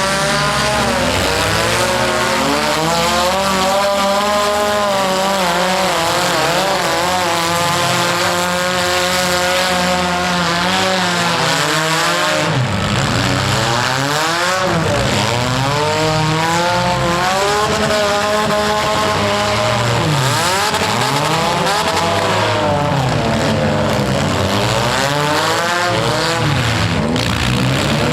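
Engines of several economy compact demolition derby cars revving hard, their pitch rising and falling over and over as they drive and ram.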